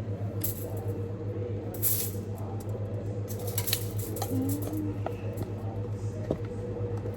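Plastic spoon stirring thick slime in a pot, with scattered clicks and short scraping swishes against the container, over a steady low hum.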